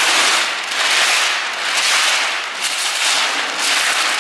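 Large sheets of wrapping paper being torn and ripped away by hand: a loud crackling tear in repeated long rips, about one a second.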